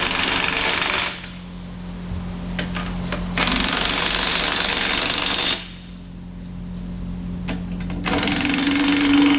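Impact wrench hammering M20 counterweight bolts home, in three bursts of about two seconds each, over a steady low hum.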